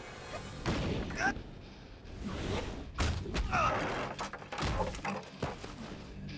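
Film fight sound effects: a rapid string of punch and kick hits and heavy thuds of bodies landing, with bowls and plates clattering and smashing.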